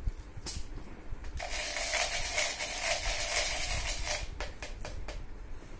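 Stirring inside a clear plastic tub: plastic scraping and rattling for about three seconds, with a few sharp clicks before and after.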